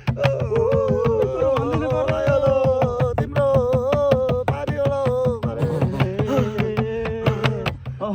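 Background music: one long melody line that wavers and slides in pitch, over a steady low drone and quick hand-drum-like percussion.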